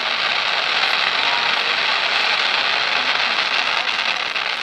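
Fireworks: a dense, steady crackle and hiss from an aerial shell's shower of sparks, easing off at the very end.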